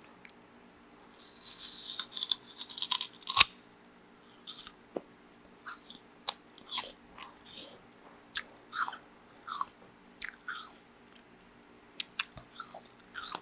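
A person biting into a crisp apple and chewing it close to the microphone. The first bite, about a second in, is a dense crackling crunch that ends in a sharp snap. It is followed by scattered wet crunches as the apple is chewed.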